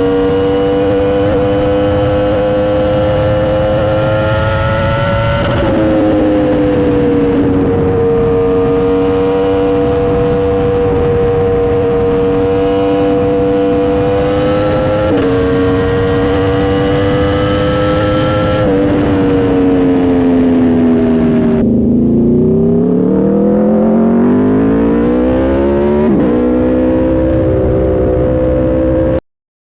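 Motorcycle engine running through a Leo Vince aftermarket exhaust at high, fairly steady revs, its pitch stepping down a few times. Late on the revs fall away and then climb again before the sound cuts off abruptly.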